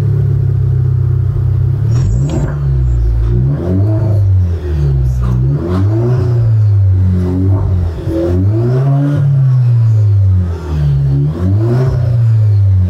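Alfa Romeo Giulia Veloce's 2.0-litre turbocharged four-cylinder, breathing through a Ragazzon sport exhaust, idling for about two seconds and then revved in a series of short throttle blips, each rising and falling in pitch.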